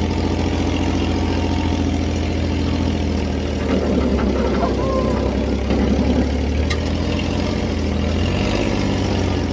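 Dune buggy engine running steadily with a deep hum.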